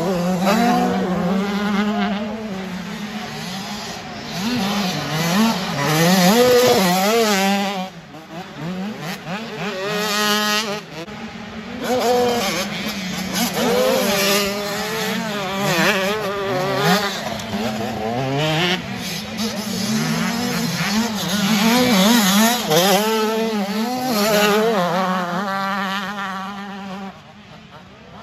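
85cc two-stroke motocross bikes revving hard through the gears as they race round a sand track, their pitch climbing and falling again and again as riders open and close the throttle. A steady low hum runs underneath, and the engines fade about a second before the end.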